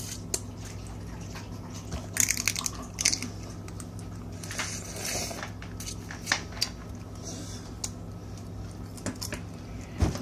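Close-up eating sounds of a person sucking on and biting pieces of crab: wet, sucky mouth noises and scattered clicks, with a dense crackle about two seconds in. A steady low hum runs underneath.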